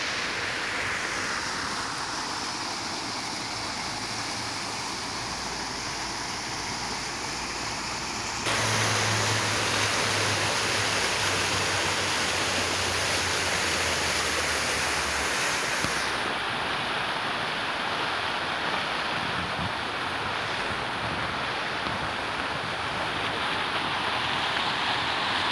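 Fountain jets splashing into a shallow pool, a steady rushing hiss of falling water that jumps louder about a third of the way in.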